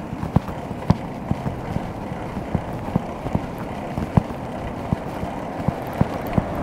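Giant FastRoad Advanced 1 bike rolling along a concrete path, with steady wind and tyre noise at the handlebar-mounted camera. Light sharp knocks come irregularly, about two or three a second, as the bike rides over the path.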